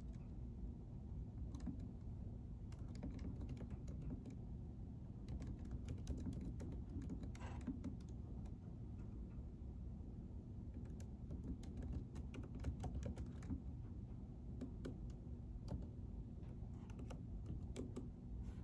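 Typing on a computer keyboard: irregular runs of soft key clicks with short pauses between them, over a steady low background hum.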